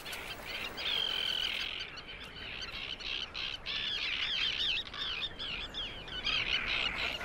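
A tern colony screaming: many harsh calls rising and falling over one another, with one longer held call about a second in.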